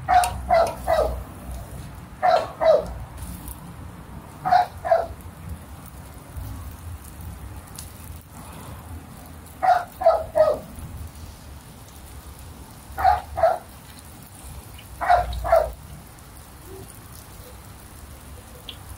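Seaweed and wrapper pieces frying in hot oil, a steady sizzle throughout. Over it, a dog barks in short groups of two or three, six times.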